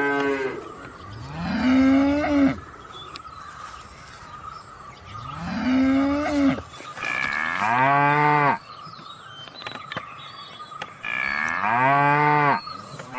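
Cattle mooing: four long moos a few seconds apart. The first two rise and then hold a higher pitch, and the last two are deeper.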